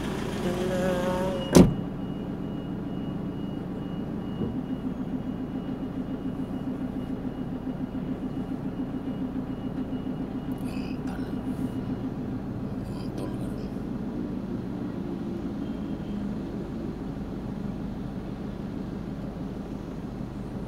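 Steady engine and road noise heard inside a van's cabin while driving, with one sharp click about a second and a half in.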